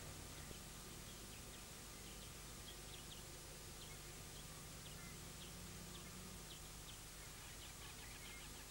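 Faint outdoor ambience: scattered short high-pitched ticks or chirps over a low steady hum.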